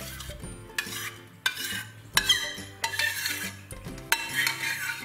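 Thick béchamel being scraped with a spoon out of a bowl into a stainless steel saucepan, a run of short rasping scrapes and clinks of the spoon against the bowl and pan.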